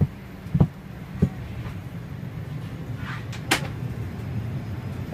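Steady low hum inside a parked Boeing 737-800's passenger cabin. Near the start there are three dull thumps about half a second apart, and a sharp click comes about three and a half seconds in.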